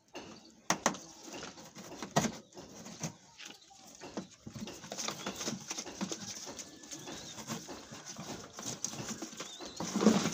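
Scissor points stabbing air holes through a cardboard box, with sharp pops about one and two seconds in and smaller scrapes between them. Pigeons coo in the background.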